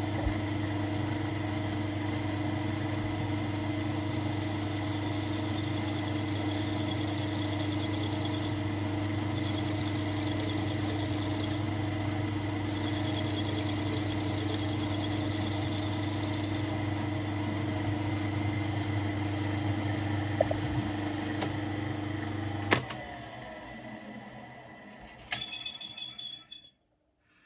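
South Bend metal lathe running at steady speed while a tiny screw is turned, then switched off and spinning down about 23 seconds in, followed by a few light clicks of handling.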